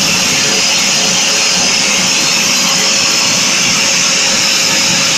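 Homemade model gas-turbine jet engine, with a four-stage axial compressor and single-stage turbine, running at a steady speed: a loud, even rushing blast with a thin high whine over it.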